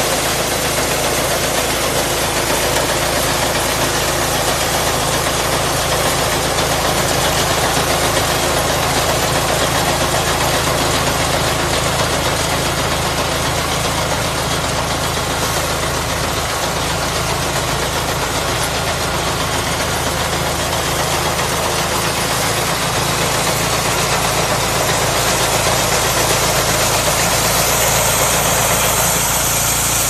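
Air-cooled diesel engine of a 4HYM-1.2 mini combine harvester running steadily as the machine cuts and threshes rice, its engine note under a steady rushing noise.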